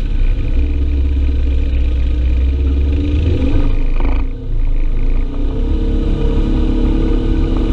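Side-by-side UTV engine running under way on an off-road trail. About four seconds in there is a brief dip with a clatter, and after it the engine note changes.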